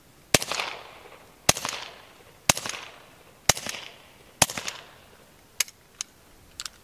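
Five shots from a suppressed Beretta 21A Bobcat .22 LR pistol, fired at about one a second, each with a short echo trailing off. Three lighter sharp clicks follow near the end.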